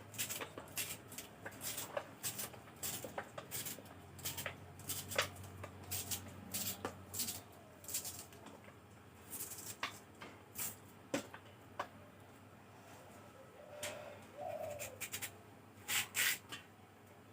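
Knife cutting giant taro (man kochu) on a board: a run of irregular sharp cuts and taps, about one or two a second.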